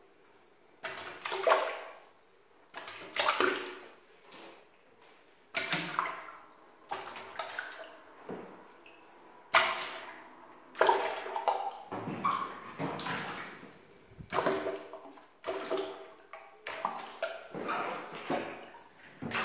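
Water-filled balloons dropped one by one into a toilet bowl, each landing with a splash that dies away over about a second, a dozen or so splashes at irregular intervals of one to two seconds.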